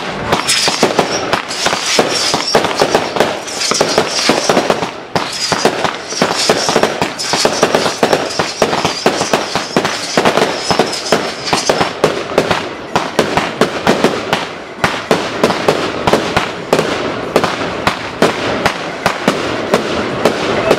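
A fireworks display going off: a rapid, continuous run of sharp bangs and crackles, many a second, with a higher crackling hiss laid over the first half.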